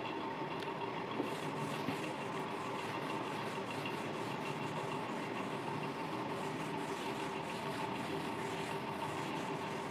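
A duster wiping a whiteboard: faint repeated rubbing strokes over a steady background hum.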